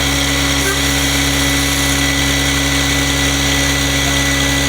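A large engine running steadily at a constant speed, with an even hum that does not change.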